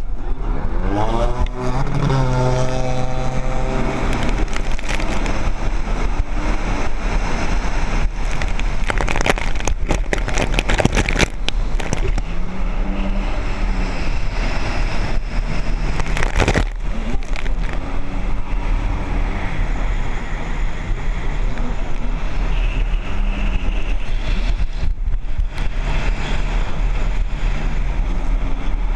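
Jet ski engines running hard during a race, with a whine that falls in pitch about two seconds in, over a steady wash of engine and water noise. There are several brief loud rushes about ten and sixteen seconds in.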